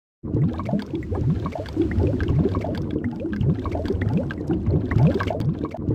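Water bubbling and gurgling, many short rising blips tumbling over one another without a break, as in an underwater bubble effect.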